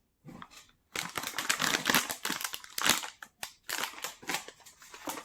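Plastic snack wrappers crinkling and rustling in quick, irregular crackles as the packages are handled, starting about a second in.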